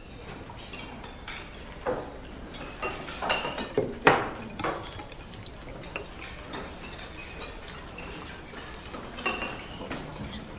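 Irregular light clicks and clinks of hard objects knocking together, the loudest about four seconds in.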